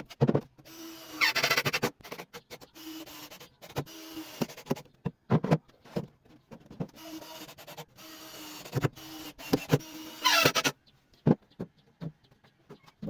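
Workshop knocks and clatter of wood and tools being handled, with two brief whirring bursts of a small motor spinning up, about a second in and again near the end.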